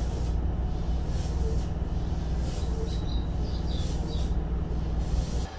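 Steady low electrical hum inside a Keikyu 1500-series electric train car, with faint high chirps near the middle.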